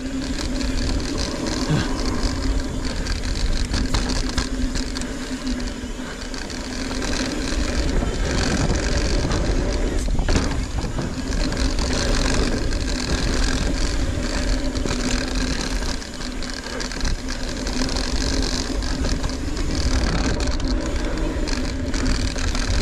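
Mountain bike riding down a dirt trail: wind rumbling on the microphone over tyre and trail noise, with a steady buzzing tone throughout and an occasional rattle or knock.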